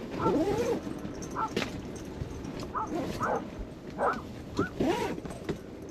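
Dogs barking and yipping in play, a ruckus of short, arching yaps coming every half second to second with brief gaps.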